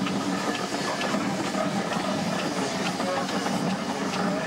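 Steam traction engine hissing steam over a steady mechanical background, with faint irregular ticks.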